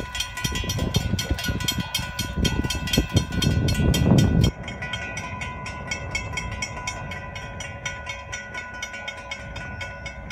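Railroad grade-crossing bell ringing in rapid, even strokes, with a heavy low rumble underneath that drops off suddenly about four and a half seconds in.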